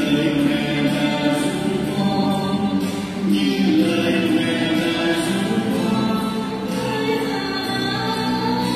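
A Vietnamese devotional song sung into microphones over backing music.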